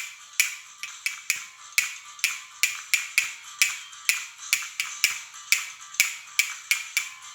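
Hands clapping in time to a children's song, a steady beat of about two sharp claps a second with lighter ones between.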